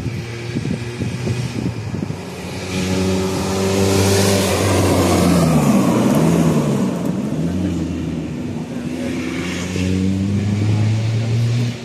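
Rally car passing at speed on a closed stage: the engine note climbs to its loudest a little before halfway, then dips and rises several times as it shifts gear. A steady engine note follows and stops abruptly near the end.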